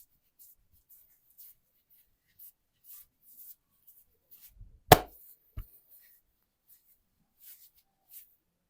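Hands brushing softly over skin and hair, then one loud, sharp crack about five seconds in and a smaller one just after: joints of the spine cracking as the person is manipulated.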